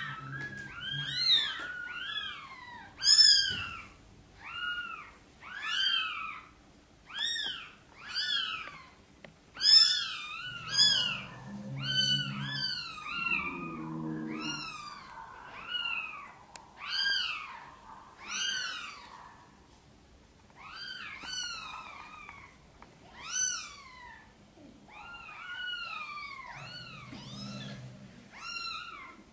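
Newborn kittens crying with a steady run of short, high, thin mews, one or two a second. The mother cat answers a few times with lower, deeper calls, about halfway through and again near the end.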